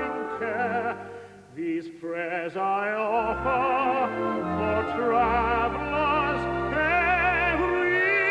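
A male tenor singing in an operatic style, holding long notes with wide vibrato over a steady instrumental accompaniment, with a short breath about a second and a half in.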